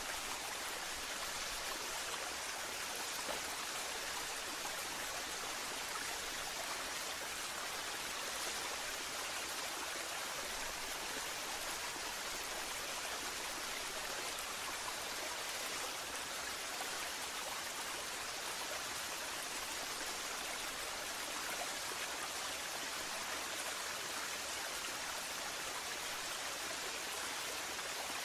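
Waterfall: a steady, even rush of falling and splashing water, with no breaks or changes.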